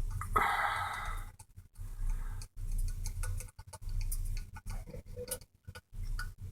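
Small clicks and ticks of a flat-head screwdriver working the screws of a hyperbaric chamber's vent screen, with a rasping scrape lasting about a second near the start, over a low hum.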